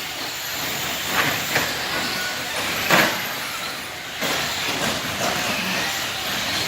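Radio-controlled off-road race cars running on the track: a steady whir of motors and tyres, broken by several sharp clacks, the loudest about three seconds in.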